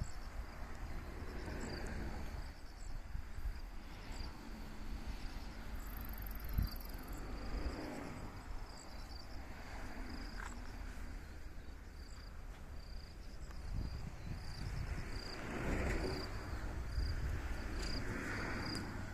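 Insects chirping in a steady string of short, high pulses, over an uneven low rumble that swells a few times, louder near the end.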